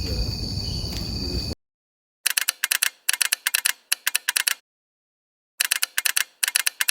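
Crickets trilling over a night field background, cut off abruptly about a second and a half in. After a moment of complete silence comes a keyboard-typing sound effect: quick runs of clicks in five or six groups, with a longer pause in the middle.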